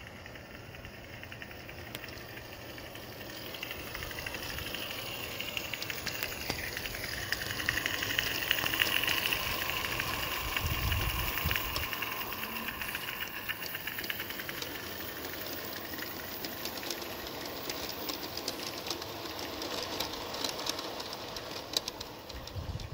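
Live-steam garden-scale Climax geared locomotive (Catatonk Loco Works 14-ton) steaming past on its track, a fast run of ticks and clatter over a steam hiss. It grows louder to a peak about eight to nine seconds in, then eases off as the log cars roll by.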